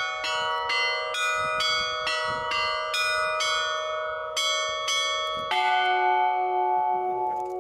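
Tuned bells of a tower-clock chime playing a melody, one clear stroke at a time, about two or three strokes a second. About five and a half seconds in, a lower bell is struck and keeps sounding.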